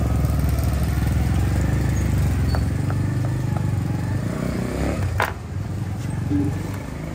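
A motorcycle engine running close by, a low steady rumble that eases off about five seconds in. A single sharp knock comes just after.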